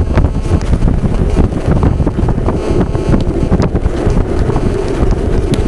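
Strong wind buffeting the microphone as it moves fast downhill, over a steady low rumble from the rolling on the road, with scattered small clicks.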